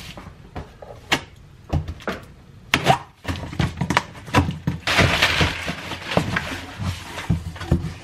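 A cardboard shipping box being opened with a box cutter: sharp knocks and clicks of the blade and hands on the cardboard, a scraping rasp of cardboard from about five seconds in, then the flaps being pulled open.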